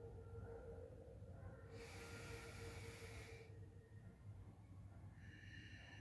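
One forceful breath through the nose, a hissing rush of about a second and a half near the middle, during a nose-only breathing exercise. A faint steady low hum lies underneath.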